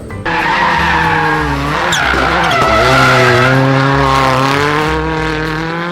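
NASCAR stock cars' V8 engines running hard at racing speed, a loud steady engine note whose pitch dips about two seconds in and climbs back up.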